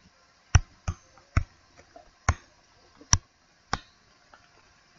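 Six or so sharp, short clicks at uneven intervals, made by the pen input as a word is handwritten stroke by stroke on a digital whiteboard.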